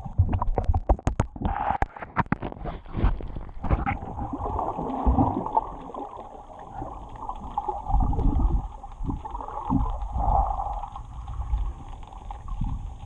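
Muffled sea water gurgling and sloshing. A quick run of sharp knocks and splashes comes in the first few seconds, then low rumbling surges over a steady wash.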